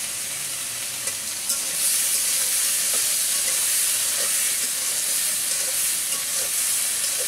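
Ridge gourd and potato frying in oil in a metal wok over a wood fire, sizzling steadily, with a spatula stirring and scraping the pan. The sizzle grows louder about two seconds in.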